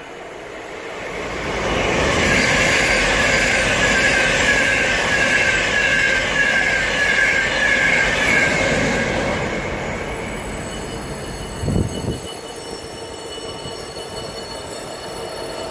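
An express train passing through at speed: a loud rush of wheels on rail with a high, wavering whine over it, building from about a second in and fading about ten seconds in. After it, a Freightliner Class 66 diesel locomotive's two-stroke V12 engine runs steadily as the loco approaches slowly, with a short knock about twelve seconds in.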